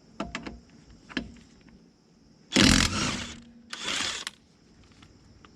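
Impact wrench loosening a car wheel's lug nuts in two short bursts, the first the loudest, after a few light clicks of tools being handled.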